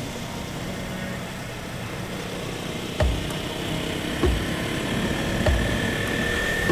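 Motorcycle engine running steadily while riding. From about three seconds in, short low thumps come every second and a bit, and a thin steady whine appears in the second half.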